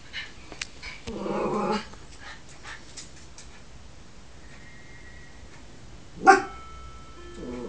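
Yorkshire terrier puppy giving a short growling bark about a second in, then one sharp, loud bark past six seconds. Faint clicks come between them.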